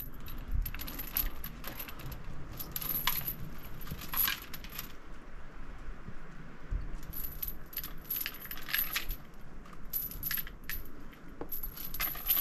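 Metal chain links clinking and jangling against rock in short irregular bursts, a fixed handhold chain being pulled on during a scramble, with dull knocks and scuffs of climbing.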